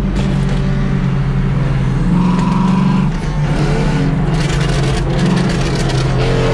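Straight-piped exhaust of a BMW E92 M3's 4.0-litre V8, heard from inside the cabin, droning steadily while cruising slowly in traffic, swelling slightly a couple of times.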